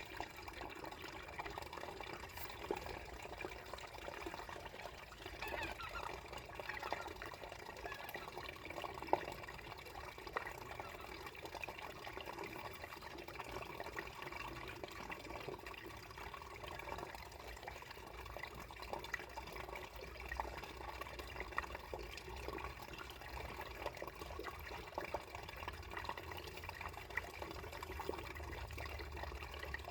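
Water trickling and gurgling beneath ice, a steady flow with a few sharp drips or ticks.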